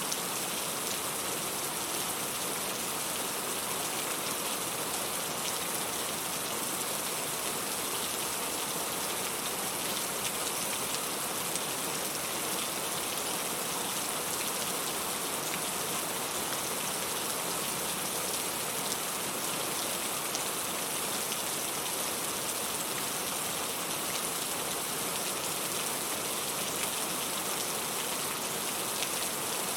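Steady rain, a dense, even hiss with faint scattered ticks.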